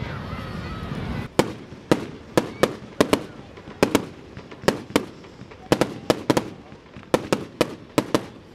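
Aerial fireworks display: shells bursting in a rapid, irregular series of sharp bangs, about three a second, beginning about a second and a half in. Before the bangs there is a steady rushing hiss.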